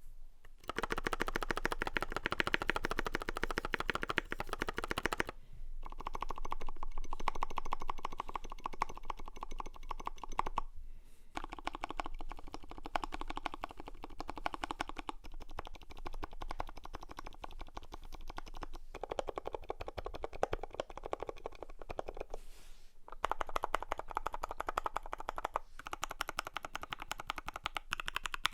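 Fast continuous typing on a custom 60% mechanical keyboard with lubed C³ Equalz Dragon Fruit linear switches, a brass plate and case foam, giving rapid key clacks with brief pauses every few seconds.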